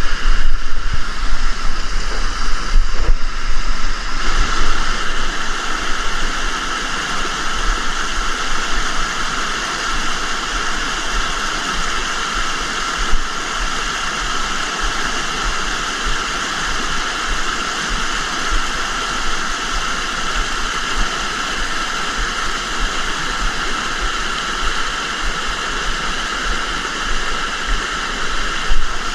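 River water rushing steadily over rocks, a constant hiss. It is louder and more uneven for the first few seconds.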